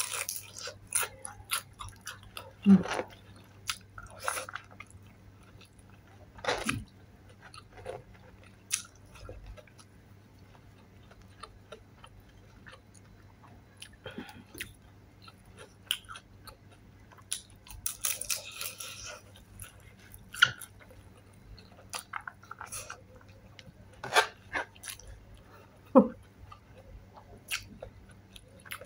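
A person biting into and chewing fried chili dynamite rolls, with scattered sharp crunches and mouth clicks, a few bites louder than the rest.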